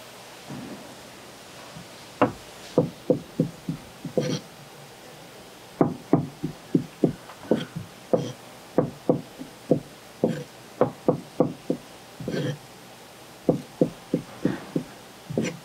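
Kitchen knife chopping down through raw searobin fillet onto a plastic cutting board, slicing it into sashimi strips: runs of sharp knocks, about four a second, with short pauses between runs.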